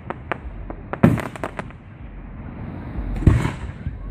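Aerial fireworks bursting close overhead: a heavy boom about a second in followed by a quick run of sharp crackles, then another boom with a rumbling tail near the end.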